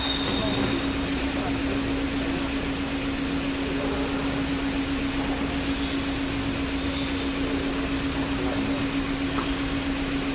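Steady ventilation noise with a constant low hum, and a faint click about seven seconds in.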